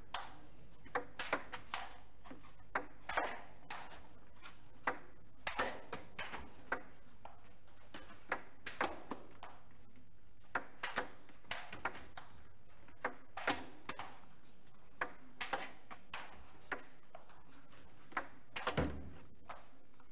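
Table tennis rally: the celluloid ball clicking off the bats and bouncing on the table, about one to two sharp hits a second in a long exchange, with a duller low knock near the end.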